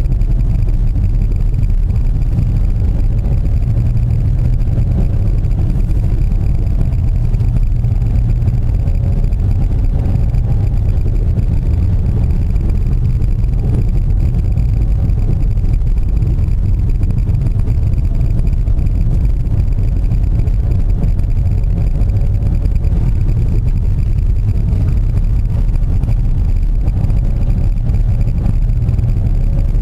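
A car driving steadily, heard from inside the cabin: a constant low rumble of engine and road noise, with the engine note rising and falling slightly.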